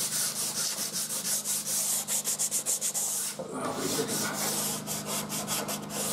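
Sandpaper rubbed by hand back and forth along the edge of an oak board, easing off its sharp edge. The strokes come in a steady rhythm and quicken to a run of short, rapid strokes about two seconds in.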